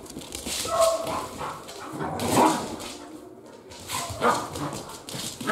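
Two huskies at play, barking in about four short bursts, the loudest about halfway through.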